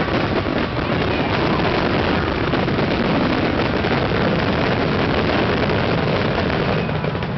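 Fireworks grand finale: many aerial shells bursting at once in an unbroken, rapid roll of booms and crackle, steady in loudness throughout.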